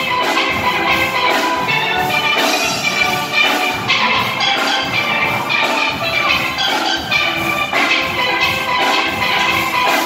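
Steel pan band playing live: a row of lead pans ringing out the tune in quick struck notes over bass pans, with a drum kit keeping a steady beat.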